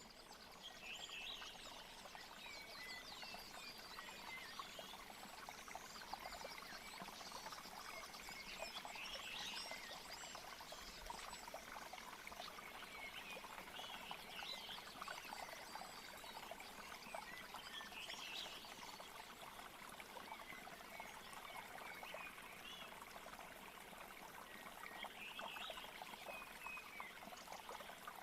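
Nature-sound track of a trickling stream, with small birds chirping now and then.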